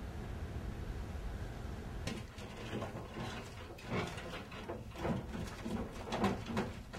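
Low steady room noise, then from about two seconds in a run of irregular clicks and knocks from things being handled at a desk.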